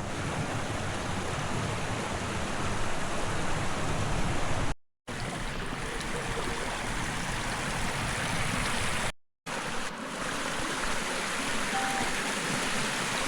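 Mountain stream rushing steadily over rocks. It cuts off twice to brief silence, about five and nine seconds in.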